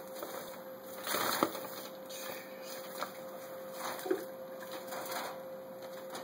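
Young squirrels scrambling about a wire-mesh cage: scattered scratching and rattling of claws on the mesh, busiest about a second in.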